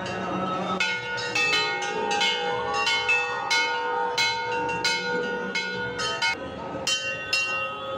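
Large brass temple bells rung by hand again and again, roughly two strikes a second. Several bells of different pitch ring at once, and each strike's tone hangs on and overlaps the next.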